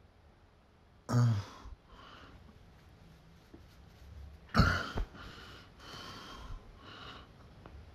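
Short breathy vocal noises from a person, altered by a voice-changer app: a loud grunt-like burst about a second in, a sharp sneeze-like burst about halfway, then several short, weaker breaths.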